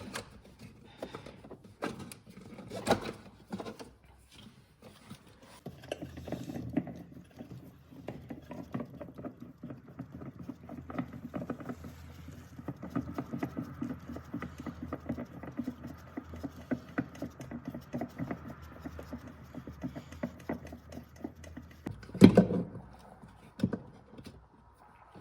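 Hands unscrewing a Nissan Navara D22 diesel fuel filter: a few knocks, then a long run of rapid scraping and clicking as the filter is worked round, and a loud thump about 22 seconds in.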